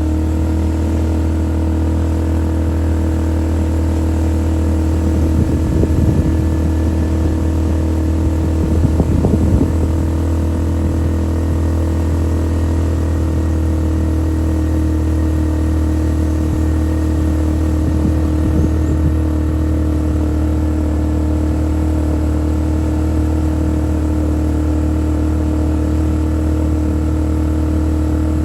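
Engine of a small off-road vehicle running at a steady speed with an even hum, with a few brief louder knocks and rattles about six, nine and nineteen seconds in.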